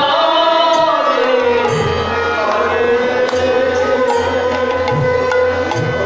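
Bengali devotional kirtan music: a male voice singing over bamboo flute and harmonium, with deep strokes of a khol drum coming in about a second and a half in.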